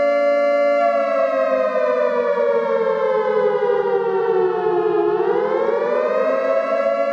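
Loud siren-like wailing tone, a two-note chord rich in overtones. It holds steady, then slides slowly down in pitch for about four seconds and swings back up to its starting pitch near the end.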